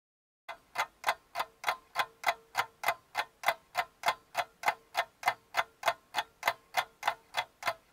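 Clock-like ticking, about three even ticks a second, beginning after half a second of silence, over a faint steady tone.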